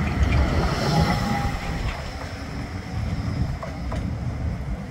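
Bombardier Flexity 2 tram passing close by and running away along the track, a high whine fading as it draws off over low rumble. Wind buffets the microphone.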